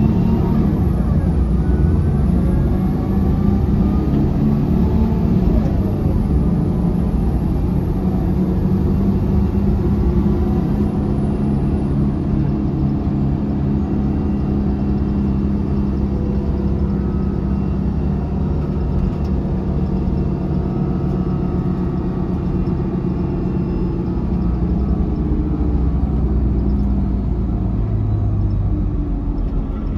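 Cabin sound of a 2005 Mercedes-Benz OH1728 bus under way: a steady engine and road rumble. The ZF automatic transmission adds a faint whine that rises in pitch in the first couple of seconds.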